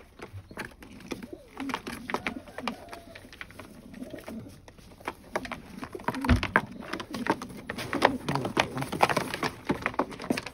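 Domestic pigeons cooing in a wooden coop, with repeated low coos, scuffling and clicking as a bird is caught and lifted out by hand, and a dull thump about six seconds in.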